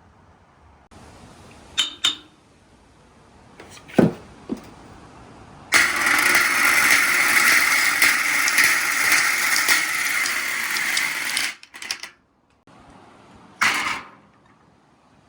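Marbles on a marble-run slope: a few clicks and a sharp knock about four seconds in, then a steady rolling rumble for about six seconds as the marbles run down the track. A few more clicks and a short clatter follow near the end.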